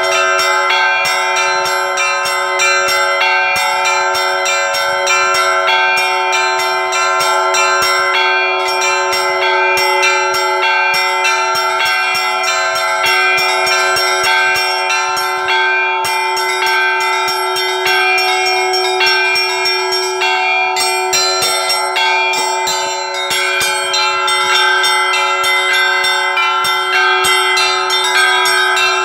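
Russian bell ringing (zvon) on a set of bells: rapid, dense strikes on the smaller bells over a larger bell's steady hum.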